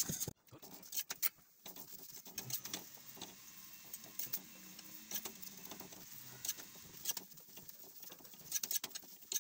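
Faint scattered crackling and small clicks of a methi paratha cooking in oil on a hot iron tawa, with a metal spatula pressing on it.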